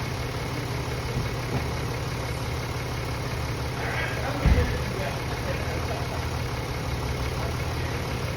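Mercedes-Benz ML350 V6 engine idling steadily after an overhaul, a smooth even low hum. About halfway through there is a single dull thump.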